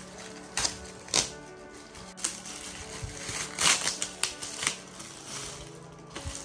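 Gift packaging crinkling and crackling as it is torn open by hand, in sharp snaps now and then, the loudest cluster about three and a half seconds in. Background music with held tones plays underneath.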